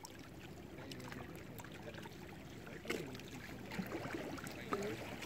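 Choppy lake water lapping and gurgling against shoreline rocks, with an irregular splash now and then.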